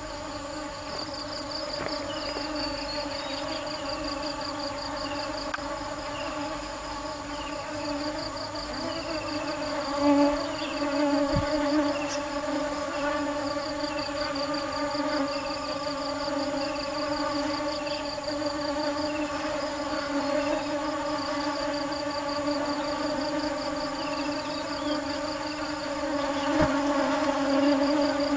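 Honeybees buzzing: a steady droning hum of their wingbeats that swells louder twice, about a third of the way in and near the end. Over it runs a high, pulsing trill and a short falling chirp roughly once a second.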